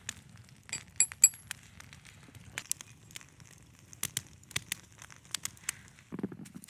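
Campfire crackling: irregular sharp pops and clicks over a faint low background, with two bright ringing clinks about a second in and a short low rub near the end.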